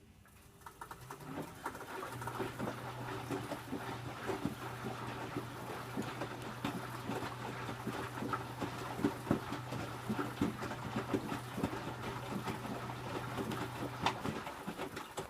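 Electrolux W455H commercial washing machine tumbling its load in the wash: the drum motor starts about a second in with a steady low hum, while wet laundry and water slosh and thud irregularly in the drum, and the motor stops about a second before the end, the pause between drum turns.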